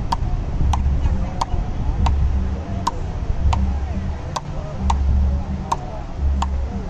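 Frescobol rally: Fastball paddles striking a Penn ball back and forth in an even rhythm, about ten sharp hits, one every two-thirds of a second.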